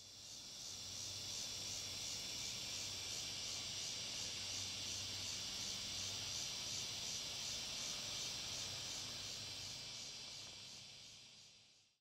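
Cicadas buzzing: a steady high-pitched drone with a fast, even pulse, fading in at the start and fading out near the end.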